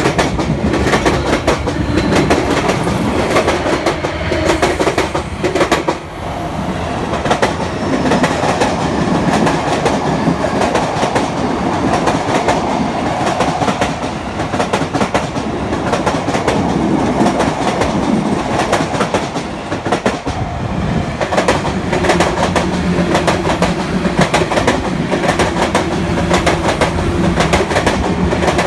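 Train wheels clattering over rail joints, a continuous clickety-clack of wheelsets striking the joint gaps as the cars roll through. The sound dips briefly about six seconds in and again near twenty seconds.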